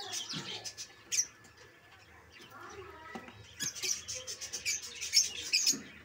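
Lovebirds chirping: short, high-pitched chirps and squeaks, scattered at first, then a dense, rapid run of chatter from a little past halfway.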